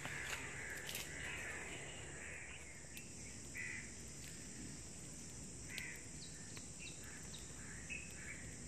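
Outdoor ambience: a steady high insect drone, a bird giving a few short harsh caws, and occasional sharp crackles from a small fire of dry twigs.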